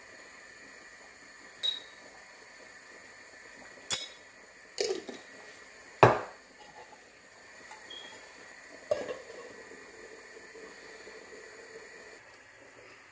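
Glass spice jar and spoon clinking against a steel cooking pot while spice is added: five sharp clinks spread over several seconds, the loudest about six seconds in, over a faint steady hiss.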